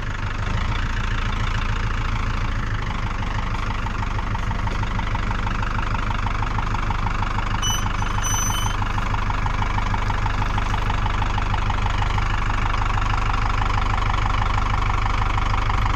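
A vehicle engine running steadily at idle, slowly getting a little louder.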